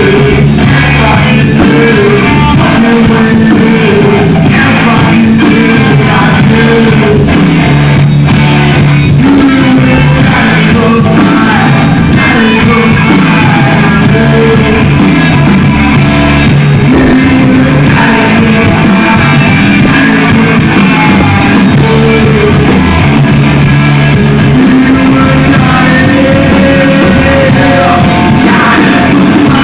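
Live rock band playing loud: electric guitars, bass and drums, with a male singer singing into the microphone.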